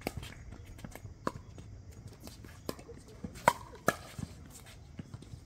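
Pickleball paddles striking a plastic pickleball during a rally: a series of sharp pops at uneven intervals, the loudest about three and a half seconds in.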